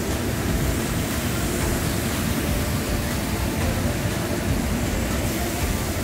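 Steady rushing of a waterfall and its stream tumbling down the wooded gorge below the boardwalk.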